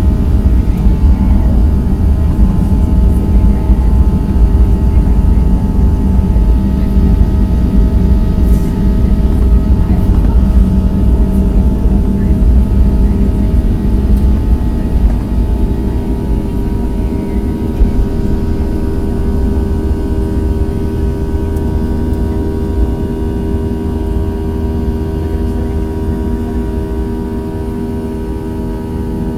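Boeing 737-700's CFM56 turbofan engines at takeoff thrust, heard from inside the cabin, with heavy runway rumble during the takeoff roll. About halfway through, the rumble eases and steady engine tones carry on, slowly getting quieter, as the aircraft lifts off and climbs.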